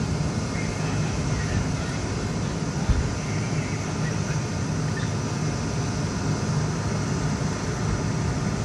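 Fire engine's engine running steadily at a hydrant hookup, a low hum. A short thump about three seconds in.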